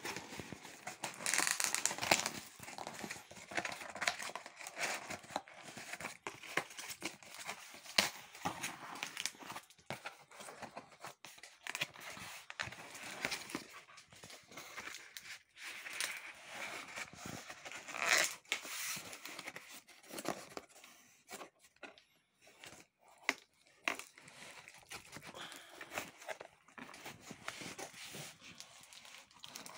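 A cardboard shipping box being opened by hand and its crumpled paper packing rustled and pulled out: irregular crinkling, tearing and rustling, loudest in bursts near the start and about two-thirds of the way through.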